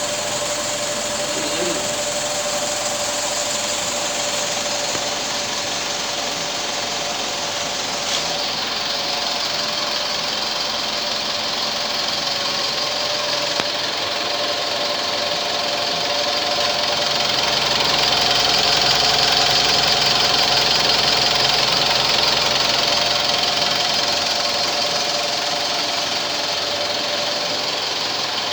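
Mitsubishi Strada diesel engine running steadily with a clattering note, over a steady whine and a high hiss. It grows louder for several seconds past the middle, then settles back.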